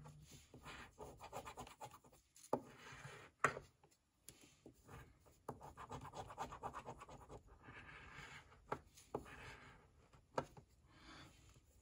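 A coin scratching the coating off a scratch-off lottery ticket: runs of quick rasping strokes with short pauses and a few sharp clicks.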